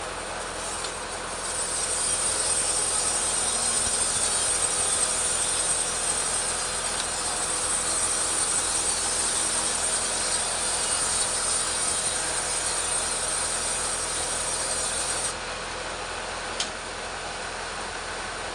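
Petrol chainsaw ripping a teak log lengthwise, a steady noisy buzz with a strong hiss. It gets louder about a second and a half in, holds while cutting, and drops back a few seconds before the end.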